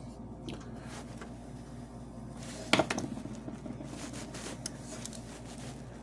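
Small clicks and light rustling from working a tinned wire into a small hole in a metal toy train car, with one sharper click about three seconds in. A faint steady hum lies underneath.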